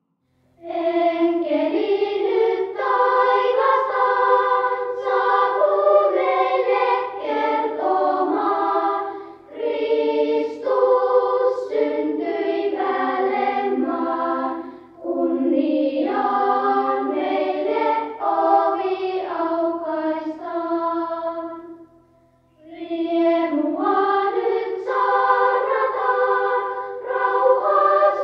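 A choir singing, in phrases with short breaks between them.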